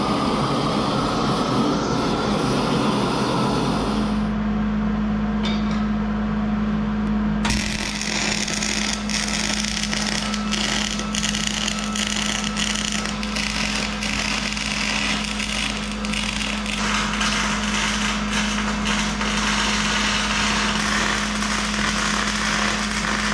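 A gas torch flame hissing against the axle's cast-iron center section for the first few seconds. Then a steady hum comes in, and from about seven seconds a wire-feed welder runs beads of nickel 55 wire onto the preheated cast iron: a continuous crackling sizzle with dense sharp pops.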